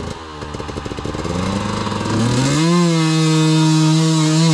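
Dirt bike engine chugging with quick pulses, then revving up over about half a second and held at steady high revs under hard throttle.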